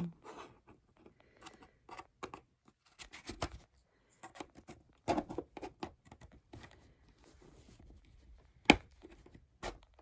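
Plastic pry tool scraping and clicking along the seam of an HP All-in-One 20-C434's plastic back cover as the cover is eased away from the front, in irregular short scrapes and snaps. One sharp snap, the loudest, comes near the end.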